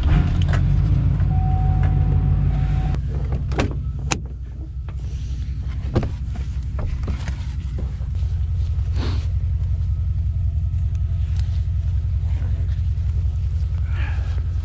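Pickup truck engine starting, then running steadily at idle, a little louder from about eight seconds in. A few clunks, like doors or latches, fall in the first half.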